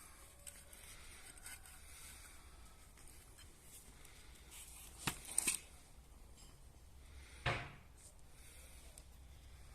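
Faint handling noises from working on parts: a quick cluster of sharp clicks about five seconds in, then a short scrape a couple of seconds later.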